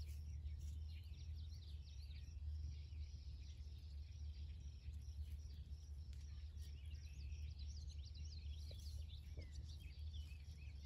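Many small birds chirping and trilling in a busy, overlapping chorus, over a steady low rumble.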